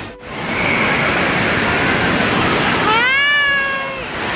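Indoor water-park din of rushing, splashing water and crowd noise, with a brief sharp drop just after the start. About three seconds in, one high-pitched cry rises and then holds for about a second, like a child's squeal.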